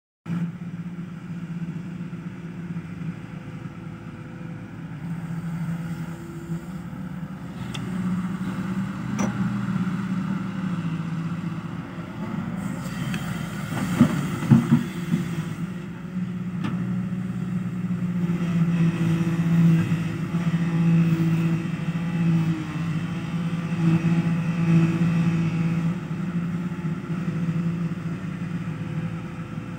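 JCB tracked excavator's diesel engine running steadily under load while digging soil, growing louder in the second half. A few sharp knocks come about halfway through.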